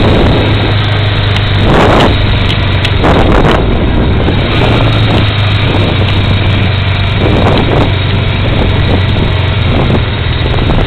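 Kawasaki KZ550 Spectre motorcycle's air-cooled inline-four engine running steadily at low speed while riding, with wind gusting on the microphone a few times.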